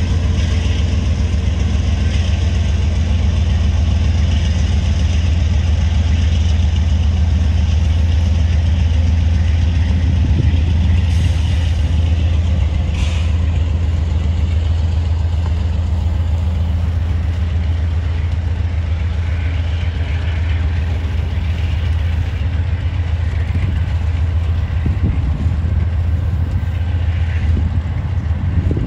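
Norfolk Southern freight train rolling by with a loud, steady low rumble.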